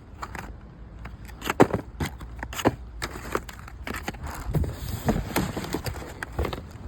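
Cardboard and plastic packaging rustling and crinkling, with repeated sharp clicks and knocks as engine rebuild kit parts are handled and taken out of their boxes.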